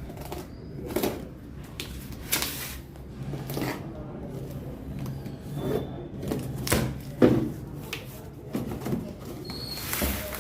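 Hands unboxing and handling protein supplement packaging: irregular taps, clicks and rustles, about a dozen in all.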